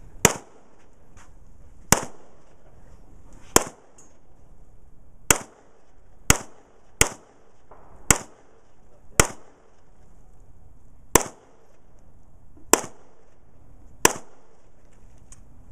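Handgun shots fired one at a time during an IDPA course of fire, about eleven in all at an unhurried, uneven pace, roughly one to two seconds apart, each sharp crack followed by a brief ring-out.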